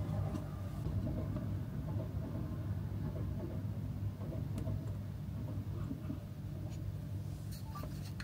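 Steady low rumble of city and rail traffic heard from a high hotel window, muffled, with a few faint clicks.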